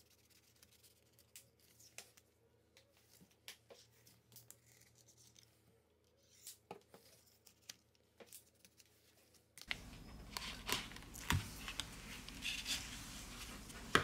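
Plastic opening card scraping and clicking along the edge of a Xiaomi Redmi Note 7's glued back cover, cutting through the adhesive as the cover is pried up with a suction cup. Faint, scattered scratches and clicks, busier in the last few seconds over a steady background hum.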